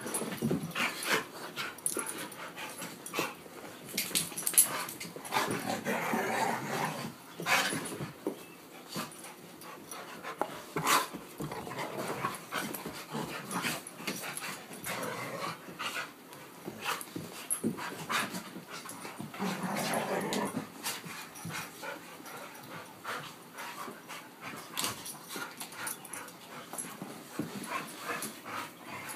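Several dogs play-fighting: growls, panting and scuffling, with many short clicks and knocks throughout and louder spells of growling about six seconds in and again around twenty seconds.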